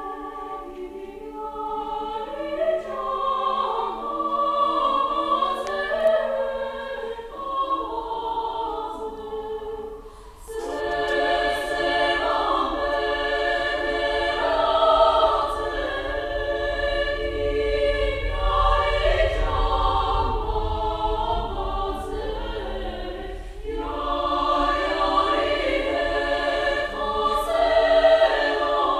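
Women's choir singing in several parts, holding long chords. The sound drops briefly about ten seconds in, then the choir comes back in loudly, with another short lull a little later.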